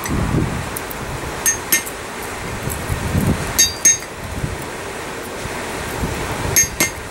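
Hammer blows on a hand-held chisel set on hot steel at the anvil, cutting striations into the fins of a forged trout bottle opener: three pairs of quick, ringing metal clinks a couple of seconds apart.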